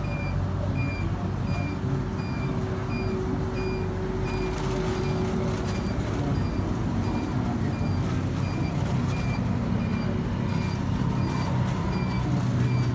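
A steady low engine rumble, with a short high electronic beep repeating about every 0.7 seconds.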